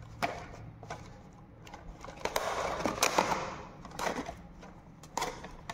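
Handling noise from unboxing a smartwatch: a few sharp clicks and taps, with a stretch of rustling packaging from about two to three and a half seconds in.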